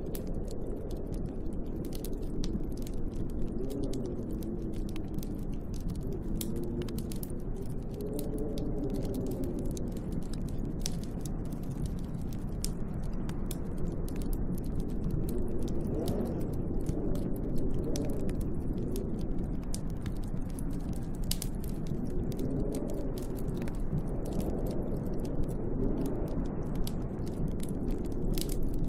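Wood fire crackling with frequent irregular pops and snaps, over snowstorm wind that moans low, rising and falling in pitch every few seconds.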